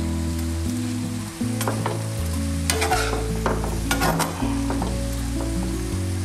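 Sliced pork loin sizzling in a hot non-stick frying pan on high heat, with a metal spatula scraping and knocking against the pan as the meat is stirred. Background music of steady low notes that change about once a second plays underneath.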